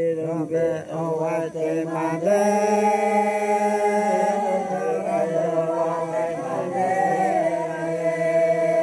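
Noke Koi people chanting together. Over the first two seconds a voice sings wavering, ornamented notes; from about two seconds in, more voices join on long held notes.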